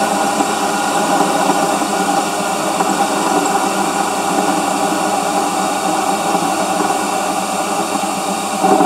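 EMCO Unimat SL mini lathe running steadily, its small electric motor and belt drive turning the spindle while the carriage is hand-fed toward its stop.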